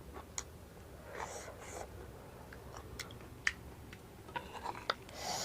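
Close-miked chewing of soggy, spicy puffed-rice chatpate: wet mouth sounds with scattered small crunchy clicks. A short breathy hiss comes near the end.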